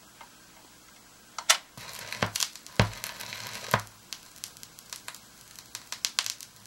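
The stylus of a BIC 960 record changer touching down on a vinyl record, heard through the amplifier. A click comes first, then hiss with three low thuds and steady crackle and pops from the lead-in groove.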